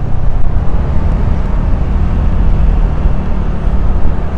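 Loud, steady low rumble of vehicle and road traffic noise, with no distinct events.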